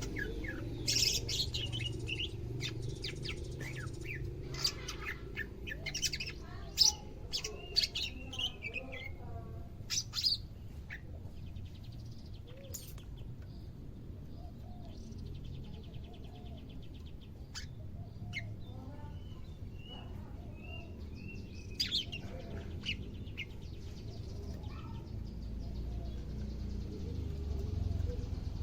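Cucak ijo (green leafbird) giving scattered short, sharp chirps and clicks with a few brief twittering phrases, busiest in the first ten seconds and sparser after; a newly kept bird on its second day, beginning to call.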